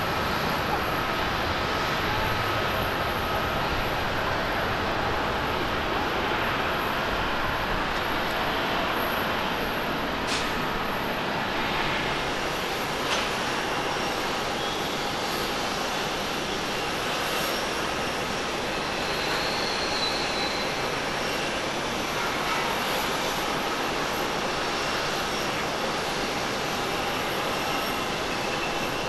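Steady rush of jet engine noise across the airport, with a brief click about ten seconds in and another about three seconds later.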